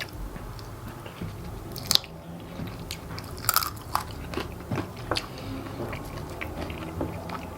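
Close-up mouth sounds of a person chewing fried chicken wings, with a few sharp crunches as the crispy skin and bones are bitten; the two loudest crunches come about two and three and a half seconds in.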